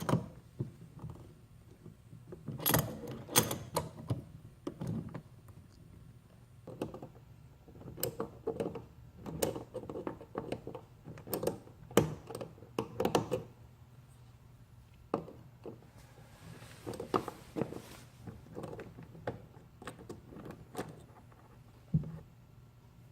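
Irregular metallic clicks, knocks and clinks of hand tools working the screws out of a motorcycle fuel petcock on the removed gas tank.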